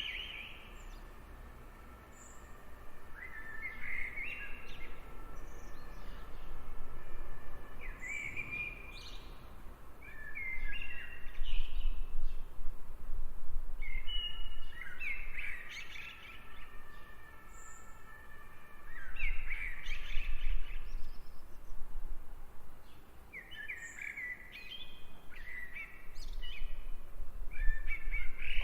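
Outdoor nature ambience of songbirds calling and singing in short chirping phrases every few seconds, over a low rumble that swells now and then.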